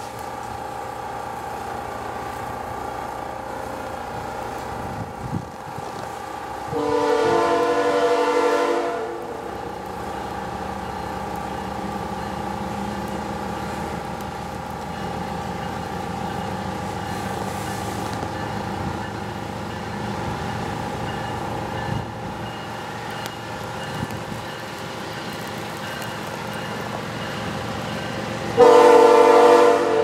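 CN GE ES44AC diesel locomotive running steadily as it hauls a freight train. Its air horn sounds twice: a blast of about two seconds around 7 seconds in, and a louder one starting near the end.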